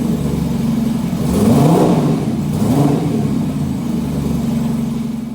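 Kawasaki KZ1300's inline-six engine idling, with the throttle blipped twice: about a second and a half in and again a second later, the revs rising and falling back each time.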